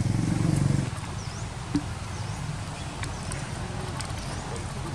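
Outdoor ambience. A low rumble fades out about a second in, and a steady hiss follows with short high chirps about once a second. One sharp click comes near two seconds in.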